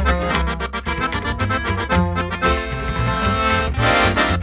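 Button accordion playing the instrumental intro of a norteño song, over a pulsing upright-bass line and guitar.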